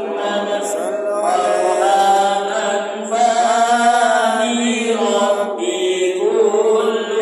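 Many men's voices chanting together in unison: an Islamic devotional chant with long, melodic, held lines.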